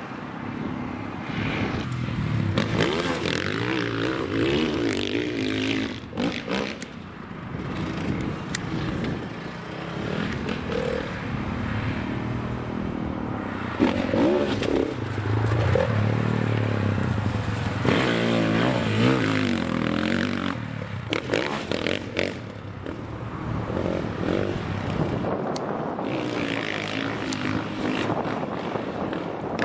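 Sidecar-cross motorcycle engines revving hard and easing off as the outfits ride the dirt track, the pitch rising and falling over and over, with a few sharp knocks along the way.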